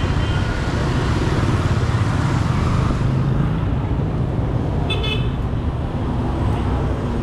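Busy street traffic, mostly motorbike engines running past steadily, with a short horn beep about five seconds in.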